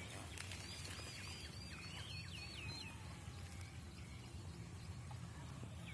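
A bird calling a quick run of about ten short, repeated high notes in the first half, over a steady low rumble.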